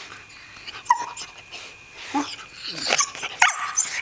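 Corgi puppy play-fighting with another dog, giving short high yips and whimpering cries, several in a row in the second half.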